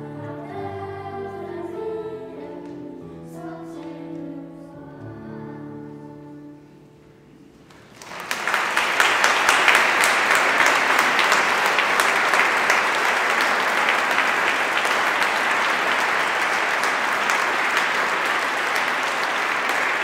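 Children's choir singing the last notes of a song, dying away about six seconds in. After a brief pause, an audience breaks into applause about eight seconds in, louder than the singing, and keeps clapping.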